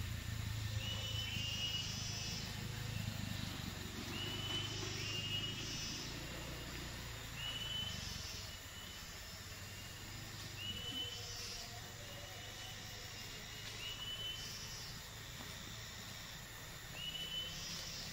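Plantation woodland ambience: a bird repeats a short, slightly rising whistled note about every three seconds, with softer high hissing pulses between the calls and a low hum that fades after the first half.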